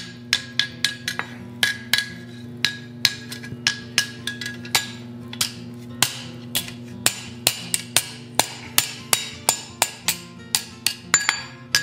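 Hand hammer striking a red-hot round steel bar on the anvil horn, bending it into a loop: a quick, irregular run of sharp metal-on-metal blows, two to three a second, several with a short ring.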